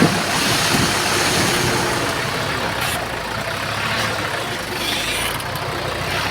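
Heavy diesel earthmoving machinery running steadily, with a low engine hum under noisy clanking and clatter, a sharp knock right at the start.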